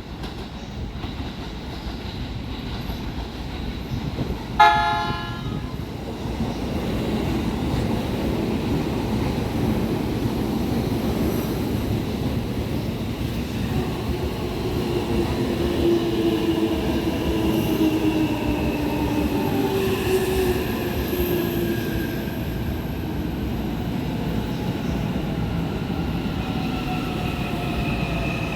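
Train horn giving one short, sharp blast about five seconds in, over the steady rumble of a train. Later the train's running sound carries a whine that slowly falls in pitch.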